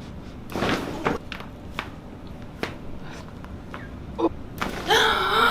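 Chiropractic spinal adjustment on a treatment table: a loud rustling thump about half a second in, then several sharp clicks of spinal joints cracking spread over the next few seconds. The patient exclaims near the end.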